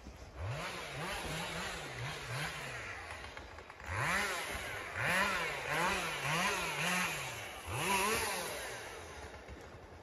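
A small engine revved again and again in quick blips, its pitch rising and falling several times a second. The blips come in three runs and fade out near the end.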